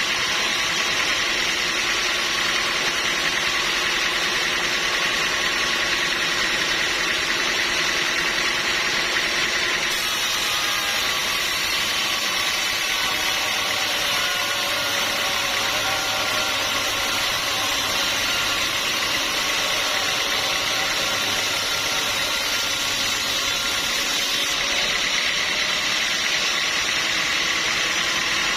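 Sawmill machinery running steadily: motor and saw noise with no pauses. The sound changes abruptly about ten seconds in and again a few seconds before the end.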